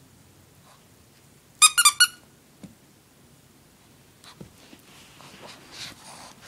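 A quick run of four short, high-pitched squeaks about a second and a half in, then soft rustling and scuffling as the Shih Tzu tugs and shakes a blanket on the carpet.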